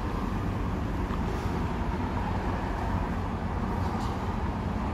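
Steady low rumble of vehicle traffic on a city street.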